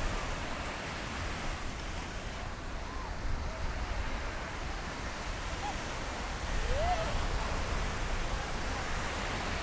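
Gentle surf washing onto the beach as a steady hiss, with a low wind rumble on the microphone and a few faint distant voices calling out.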